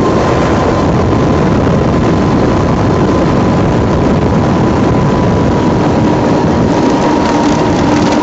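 Light aircraft engine running steadily in an open cockpit, its note easing slightly lower, with loud wind rush over the microphone.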